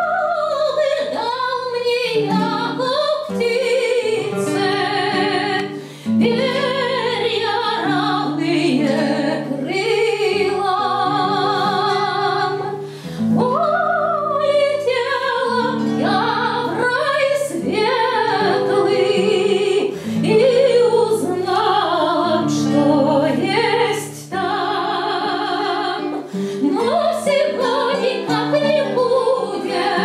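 A woman singing a Russian romance in a full, operatic voice with wide vibrato, in long phrases with short breaths between them. She is accompanied by a plucked domra and an acoustic guitar.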